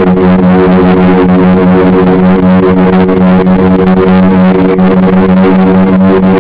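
Engines of a radio-controlled B-17 scale model running at a steady throttle, a loud, even drone that holds the same pitch throughout, heard close up from a camera mounted on the airframe.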